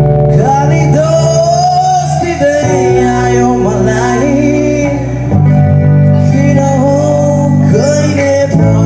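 A male singer performing a song with guitar and bass accompaniment, the melody rising and falling over steady chords.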